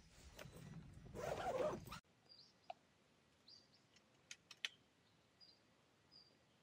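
Male wild boar grunting and scraping in loose dirt for about two seconds, loudest just before it breaks off suddenly. Then near-quiet forest follows, with a few faint clicks and brief bird chirps.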